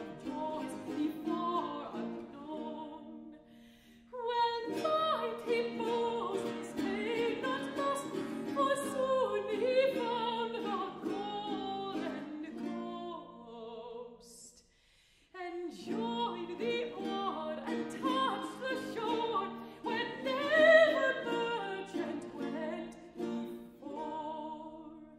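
A mezzo-soprano singing an English Baroque song with baroque guitar accompaniment, in three phrases separated by short breaks about four and fifteen seconds in.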